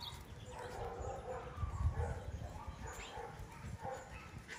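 Miniature schnauzer puppies whining and yipping in a run of short, wavering calls while they play. A dull low thump comes about two seconds in.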